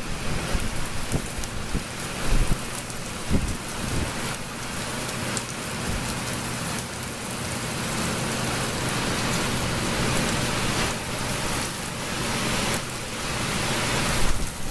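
Heavy rain falling steadily in a thunderstorm, with a few sharp knocks of drips in the first four seconds.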